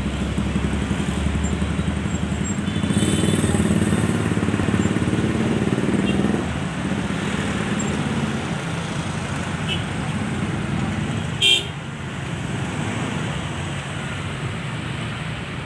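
Street traffic: motorcycle and car engines running close by, loudest in the first few seconds, with one short horn toot about eleven seconds in.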